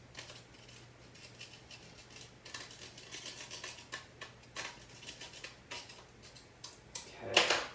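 Knife scraping lemon zest off a grater: a run of short, scratchy strokes, with one louder stroke near the end.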